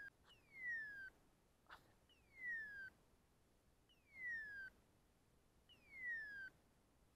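Faint electronic beeper collar on a pointing dog sounding its point-mode call: a falling whistle-like tone repeated evenly about every two seconds, four times, signalling that the dog is standing still on point.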